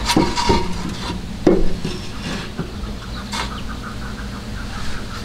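Metal clinks and scrapes with a few sharp knocks, the loudest about a second and a half in, from tools and parts being handled at a truck's rear suspension during a bump-stop install.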